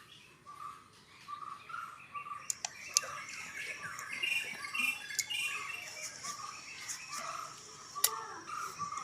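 Birds chirping in short repeated notes, about two a second, with a couple of sharp clicks about three and eight seconds in.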